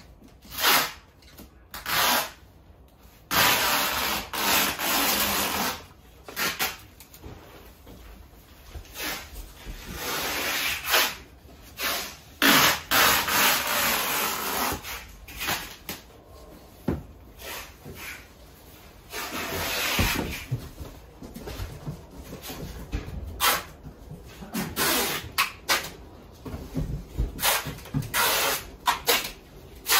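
Household goods being wrapped in packing paper and cardboard: irregular rustling and rubbing that comes in stretches of a few seconds, with sharp knocks and bumps between them.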